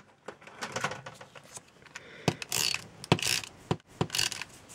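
Scattered light taps and clicks from a wood-mounted rubber stamp being inked and pressed onto cardstock, with a few short scuffing rubs of paper on the tabletop in the second half.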